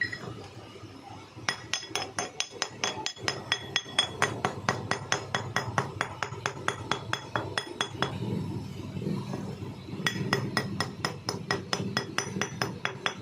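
A hammer striking a metal pulley in quick, even blows, about five a second, each with a bright metallic ring. The blows stop for about two seconds in the middle, then start again.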